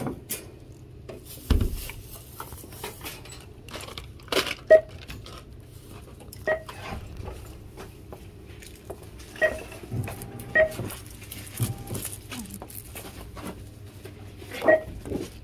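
Store checkout handling noise: merchandise and stiff paper knocked and rustled on a counter and in a shopping cart. A dull thud comes about a second and a half in, and several short electronic beeps sound through it.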